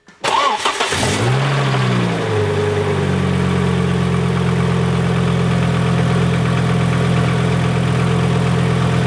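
Volvo 850's 2.5-litre 20-valve inline five-cylinder engine starting: it cranks briefly, catches and flares up in revs, then settles within a couple of seconds into a steady idle.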